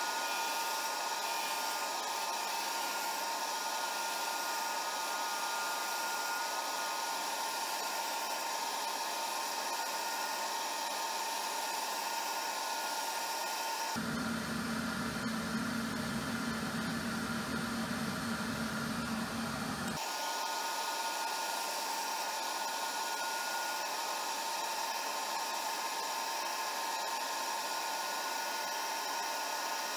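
Steady whirring hiss of a wood lathe running, with no distinct cutting or scraping strokes. A lower hum joins for about six seconds midway, then drops out.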